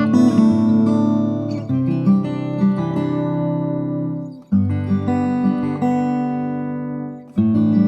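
Background music: an acoustic guitar strumming chords, each struck and left to ring, a new one roughly every two to three seconds.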